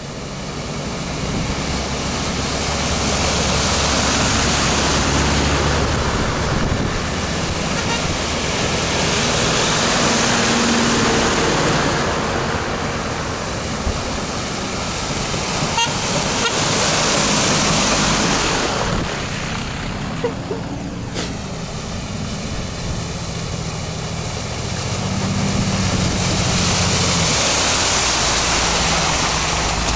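Off-road 4x4 engines working under load while driving through deep forest-puddle water. Water splashes and surges in several long swells, over the rising and falling engine note.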